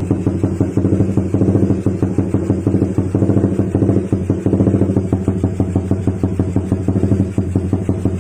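Suzuki Raider R150 motorcycle's single-cylinder engine running at a steady speed, with a loud, even exhaust note that holds one pitch throughout.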